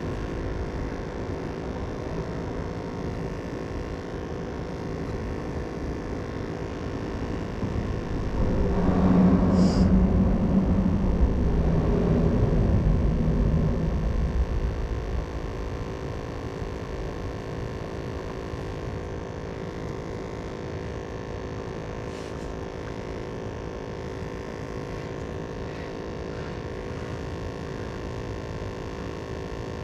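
Steady low rumble and hum of traffic on the bridge overhead. About eight seconds in, a vehicle passes louder for several seconds, with a low drone, then fades back into the rumble.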